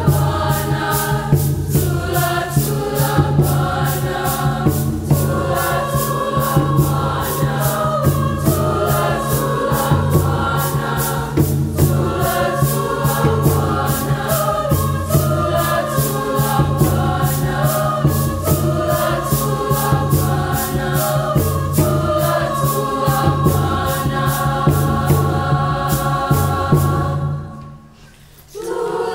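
Mixed high school choir singing in harmony over a steady, regularly pulsing low accompaniment. Near the end the sound breaks off for about a second, then the singing comes back in.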